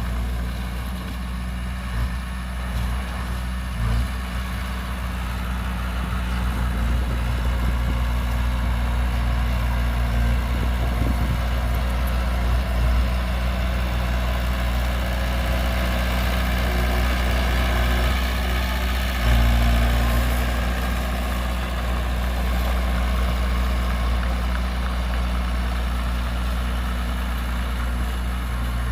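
Heavy diesel engine of earthmoving equipment running steadily at low revs, with a few short knocks and a brief surge in engine sound about two-thirds of the way through.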